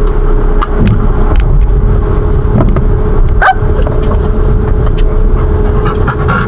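Car driving, heard from inside the cabin: a steady low road rumble with a constant hum, and a few faint clicks.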